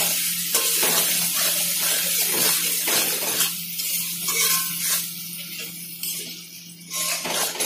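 Spiced potatoes and prawns sizzling in oil in a wide metal kadai while a steel spatula stirs and scrapes against the pan, over a steady low hum. The masala is being fried down (kashano). The stirring strokes grow fainter and sparser about halfway through.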